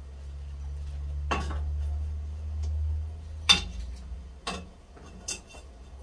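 Metal tongs clinking against a stainless steel pot and steamer basket as rolled fabric bundles are set in to steam: four sharp clinks, the second the loudest, over a steady low hum.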